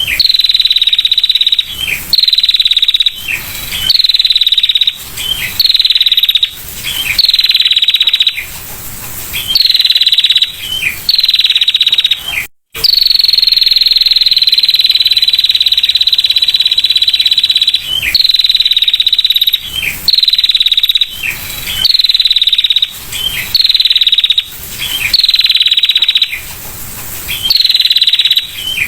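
Female prinia (prenjak) giving its rapid buzzing 'ngetir' trill. High trills repeat about every one and a half to two seconds, each around a second long, with one longer trill of about five seconds near the middle.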